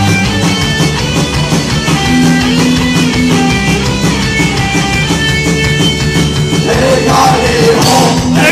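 Punk rock band playing live: distorted electric guitars, bass and drums in a loud, dense mix, with a shouted vocal coming in near the end.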